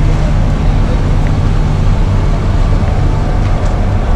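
An engine running steadily at idle, a low even hum with no change in speed.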